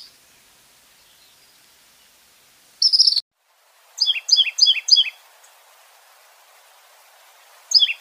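Small songbirds calling over faint hiss: a short high twittering chirp about three seconds in, then a great tit singing four quick repeated two-note phrases, and another brief chirp near the end.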